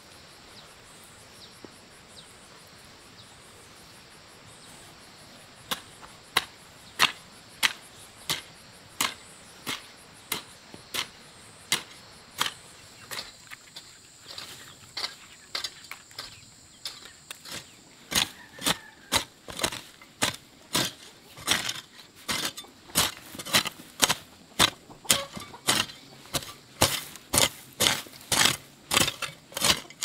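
A garden hoe chopping into weedy soil in repeated sharp strikes. The strikes begin about six seconds in at roughly one a second and quicken to about two a second in the second half.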